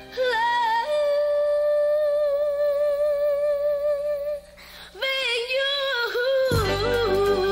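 Background music led by a solo singing voice that holds one long note for about three seconds, breaks off briefly, then starts a new phrase. Low accompaniment comes in near the end.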